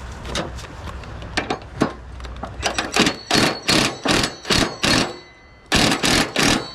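Quick runs of sharp metal clanks and knocks from pipe wrenches being worked against a seized mower-deck pulley nut. The knocks come faster and louder after a couple of seconds, pause briefly about five seconds in, then start again.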